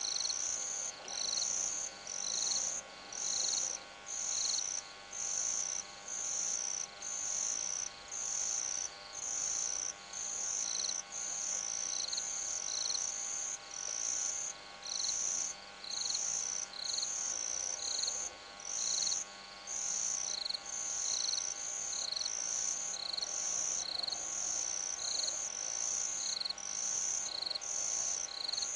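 A cricket chirping in a steady, even rhythm, about one and a half high-pitched chirps a second, over a faint steady electrical hum.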